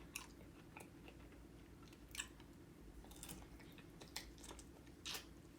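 Faint chewing of soft strawberry cheesecake, with short wet mouth clicks and smacks every second or so over a low steady hum.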